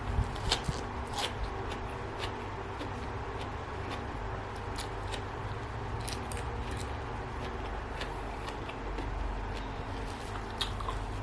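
A person eating, chewing and munching food with scattered small crisp clicks, over a steady background hum.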